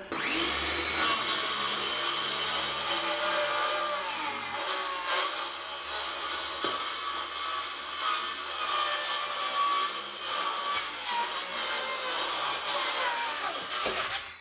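Circular saw spinning up and cutting through the top of a blue plastic 55-gallon drum. It runs with a steady high whine whose pitch wavers as the blade bites, then winds down near the end.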